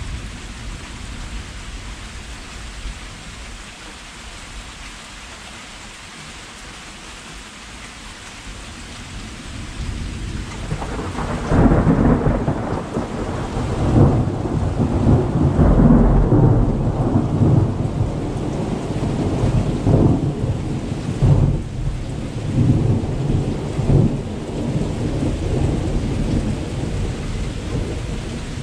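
Steady rain falling. About ten seconds in, a long roll of thunder builds and rumbles on, with several louder cracks and surges in it, then slowly eases off near the end.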